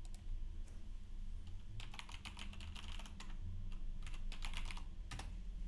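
Typing on a computer keyboard: a few quick runs of keystrokes from about two seconds in, over a faint low hum.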